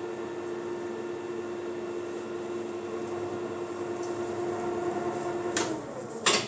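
Maximat metal lathe running with a steady hum, then a loose glove is snatched into the spinning chuck. About five and a half seconds in the running tone stops with a click, and a louder sharp knock follows just before the end.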